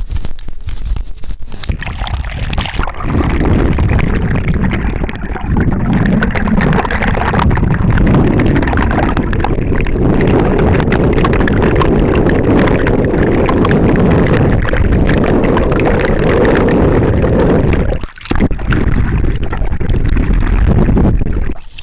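Loud, muffled rushing and churning of water over a camera's microphone held under the sea surface from a small boat, with a faint steady high tone above it. The noise drops out briefly twice near the end.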